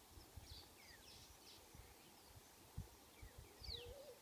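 Faint wild birdsong: scattered short high chirps and quick falling whistles, with a low wavering call near the end and a few soft low thumps.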